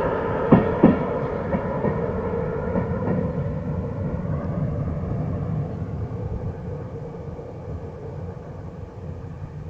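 Locomotive running light, passing with a couple of wheel clacks over rail joints in the first second, then drawing away with a steady motor tone over a rumble that slowly fades.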